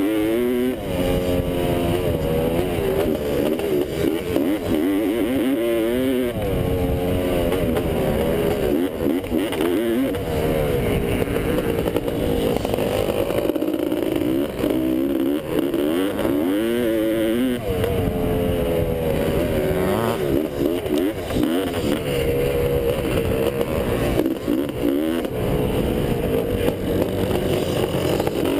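1985 Honda CR500's big single-cylinder two-stroke engine revving hard under racing load, its pitch climbing and dropping again and again as the throttle opens and closes and it shifts gears. Heard close up from a camera on the bike, with rough wind noise.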